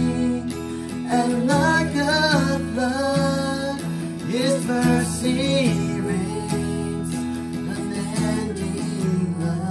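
Acoustic guitar strummed steadily, accompanying a woman and a man singing a slow song.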